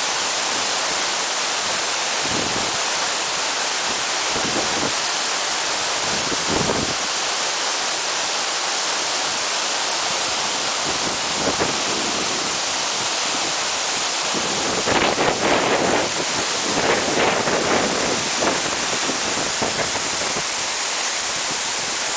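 Waterfall pouring: a steady, dense rush of falling water, with a few louder irregular surges about two-thirds of the way through.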